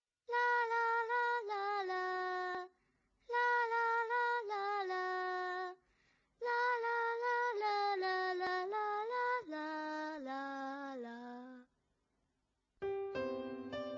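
A woman's voice singing unaccompanied in three phrases, each sliding down at its end, the last one lower and longer. Near the end, instrumental music begins.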